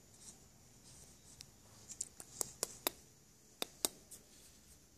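Schnauzer licking yogurt from a plastic cup: soft, faint licking, then a quick run of sharp clicks about two seconds in and two more a second later.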